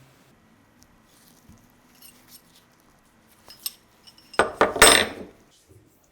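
Metal parts clinking and clattering against each other: a few light ticks, a sharp click, then a loud burst of ringing metallic clinks near the end.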